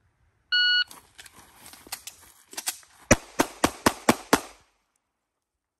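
An electronic shot timer gives one short beep, then, after a pause for the draw, an Atlas Gunworks Athena pistol fires a fast string of shots. The last six are the loudest, about four shots a second.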